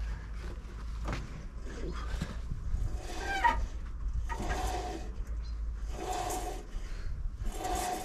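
Height crank on a Frontier OS27 bandsaw mill being wound by hand to move the saw head, rubbing and squeaking about once every second and a half, with one short rising squeal partway through.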